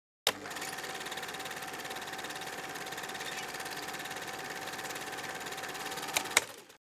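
Film projector running: a steady mechanical whirr with a fast, even rattle and a faint hum. It starts with a sharp click, and two loud clicks near the end come just before it fades out.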